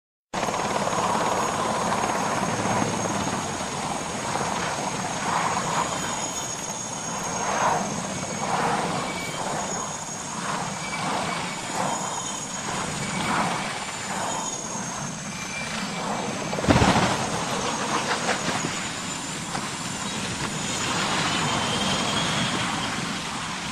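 Aircraft noise, a steady, noisy engine sound with a faint high whine over it. About seventeen seconds in there is one sharp, loud bang.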